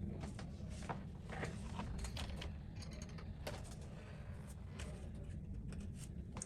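Small clicks and short scrapes from hand tools and phone parts being handled on a repair bench, over a steady low hum.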